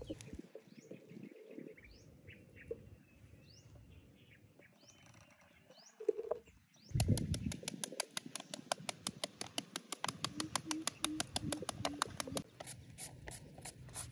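Scattered bird chirps for the first half. Then, about seven seconds in, a hand peeler and shredder scraping a firm green mango: fast, even strokes, about seven a second.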